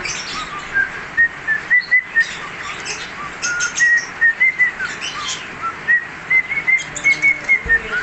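Cockatiel whistling its song: a long run of short, clear whistled notes, several a second, stepping and gliding up and down in pitch, with a few scratchy chirps mixed in.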